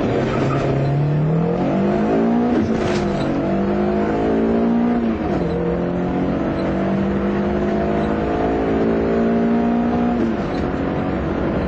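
Car engine at full throttle, heard from inside the cabin, accelerating hard through the gears on a quarter-mile run. Its pitch climbs, drops sharply at each of three upshifts (about 3, 5 and 10 seconds in), then climbs again.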